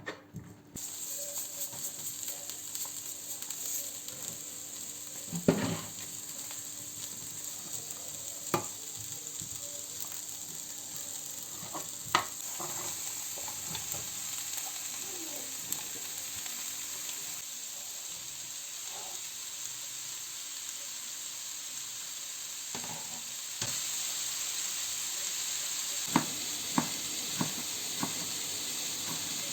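Food sizzling steadily as it fries in a pan, with a few sharp knocks from stirring. The sizzle starts about a second in and gets louder near the end.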